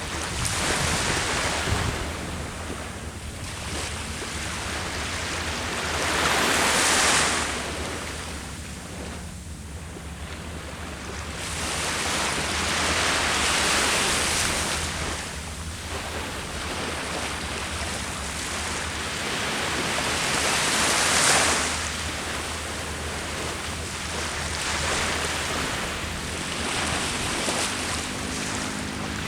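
Ocean waves breaking on the shore, the surf swelling and falling back in long surges several seconds apart, with a faint low steady hum underneath.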